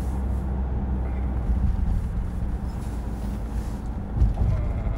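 Steady low road and engine rumble inside a moving vehicle's cabin, with a dull bump a little after four seconds in.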